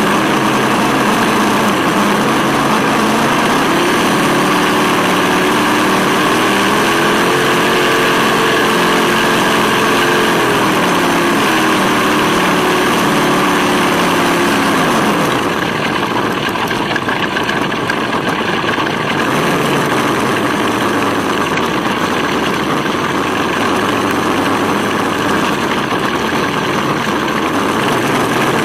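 Simulated V8 engine sound from an ESS-One sound module in an electric RC scale 4x4, revving up from about a second in, holding high, then dropping back about halfway through. It sits over a steady rushing noise from the truck on the move.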